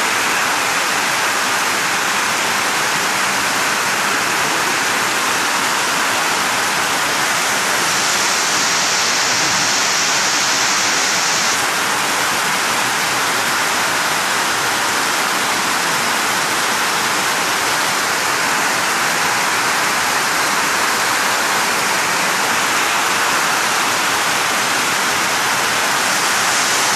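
Flash floodwater pouring down a garage entrance ramp: a loud, steady rush of water.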